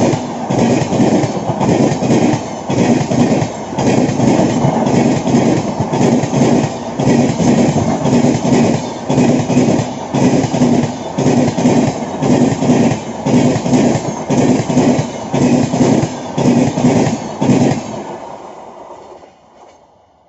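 Coaches of an express train passing at about 110 km/h, the wheels clattering over the track in a steady rhythm about once a second. Near the end the clatter dies away quickly as the last coach goes by.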